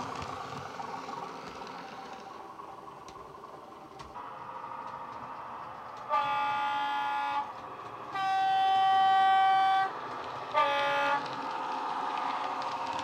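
Horn of a first-generation DMU, recorded and played by a Soundtraxx Econami DCC sound decoder through the small onboard speaker of a Dapol Class 121 model railcar. It sounds three blasts about halfway through: a short one, a longer, louder one at a different pitch, then a short one again. Under the horn runs the decoder's faint diesel running sound, which grows louder near the end.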